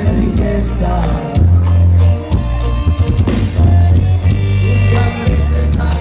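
Live band playing a song, with a strong bass line under guitar, drums and a singer.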